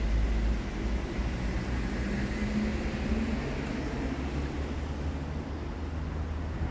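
Outdoor city-street ambience: a steady low rumble with a faint passing hum about two seconds in.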